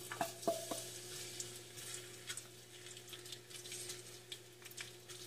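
Sliced garlic sizzling faintly in hot oil in a stainless steel wok, the start of a sauté. A few light clicks of a wooden utensil against the spoon and pan in the first second, over a steady low hum.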